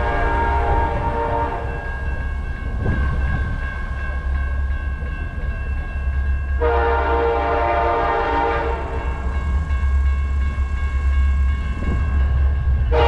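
BNSF diesel freight locomotives running close by, with a heavy low engine rumble and a steady high whine throughout. The multi-chime air horn is sounding as it opens and stops after about two seconds, blasts again for about two seconds in the middle, and starts a third blast at the very end.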